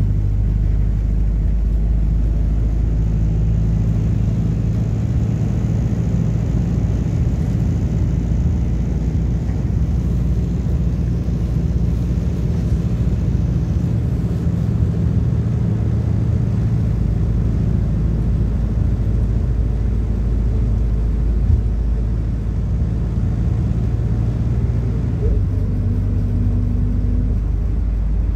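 MAZ-226.069 bus running on the road, heard inside the cabin: a steady low engine and road drone whose engine note shifts in pitch a few times as the speed changes.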